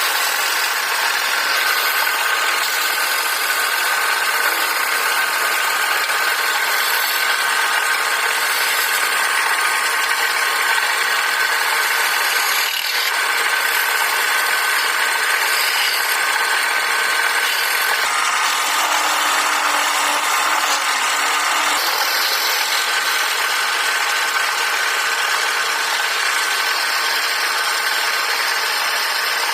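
Wood lathe running steadily, its motor giving a constant whine while a tool rubs against the spinning wood.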